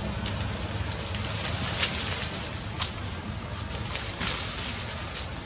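Steady outdoor background noise, a low rumble with a hiss on top, broken by a few short clicks in the middle.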